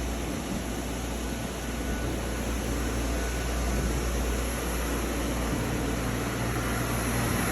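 Doosan DNM 200/5AX vertical machining center running under power: a steady low hum with an even fan-like hiss.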